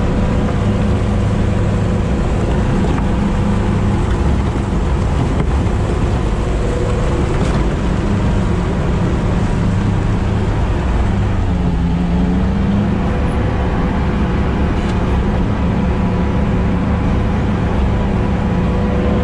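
Sherp amphibious ATV's diesel engine running steadily under way, heard from inside the cab. About twelve seconds in the engine note dips briefly and then comes back up.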